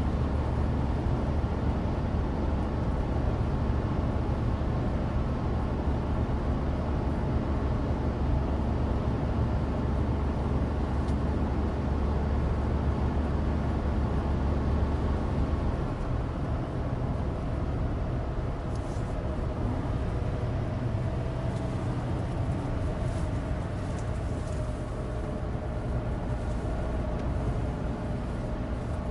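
Inside the cabin of a Suzuki Alto Turbo RS on the move: its 660 cc turbocharged three-cylinder engine runs steadily, under studless-tyre road noise and the heater fan. A strong low drone eases off about halfway through.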